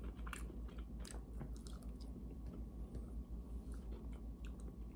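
Chewing of breaded fried chicken bites, with faint irregular crunches and mouth clicks.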